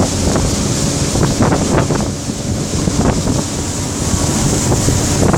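Wind buffeting the microphone aboard a moving boat, over a steady rush of water and boat noise, with a few short splashy peaks.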